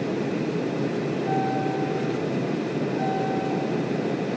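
Steady jet airliner cabin noise in flight, a low rushing drone of engines and airflow. Two short tones at the same pitch sound over it, about a second and a half apart.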